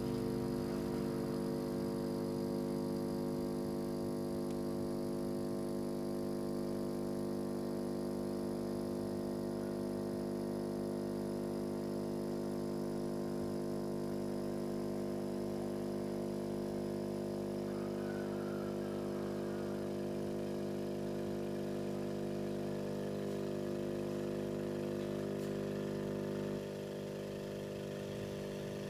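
Restored Hailea aquarium air blower running steadily with an even motor hum. The level steps down slightly near the end.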